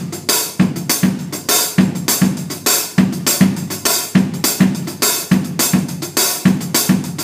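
Drum kit playing a basic calypso groove with the bass drum laid back: low bass-drum hits fall in pairs about every second and a quarter under steady hi-hat and snare strokes.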